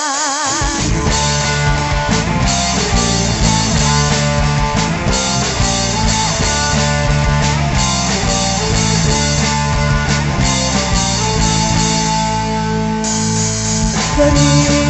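Full rock band kicking in together at once and playing an instrumental section: two electric guitars, an electric bass and drums, loud and steady.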